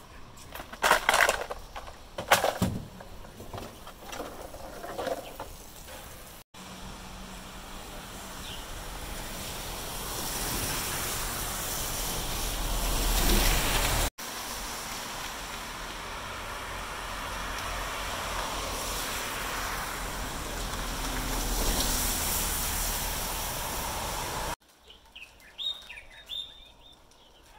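Strong wind blowing in gusts that rise and fall, with a deep rumble of the wind buffeting the microphone. Before the wind there are a few sharp bangs and clatters, and a few short high chirps come near the end.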